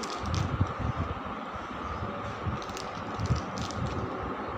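Hands pulling modelling clay out of its plastic wrapper: soft crinkling and rustling with dull low knocks, over steady background noise.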